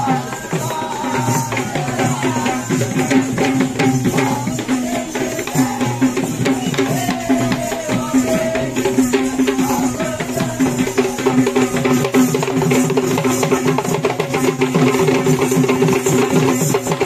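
Traditional Sri Lankan drum and brass hand cymbals (thalampota) playing a fast, dense dance rhythm. A wavering pitched melody line runs over the first half, and a steady held tone grows stronger in the second half.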